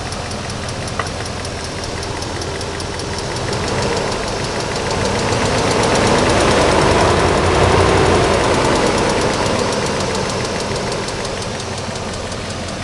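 BMW 740iL V8 engine running with a rapid, even ticking knock from the cylinder head, the rattle whose cause the owner is asking about. The engine sound swells louder through the middle and then eases back.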